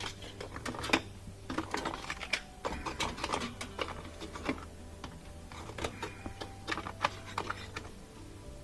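Irregular clicks and knocks as chunks of ice are worked loose from a refrigerator's frozen-up freezer drain, over a faint low steady hum.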